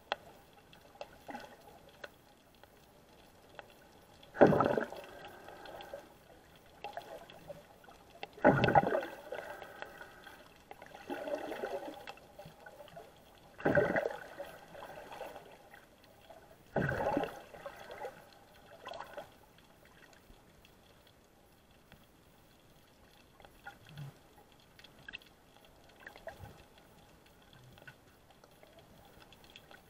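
Water sloshing against an action camera's waterproof housing underwater, in muffled surges about every four seconds, four strong ones, then only faint gurgles near the end.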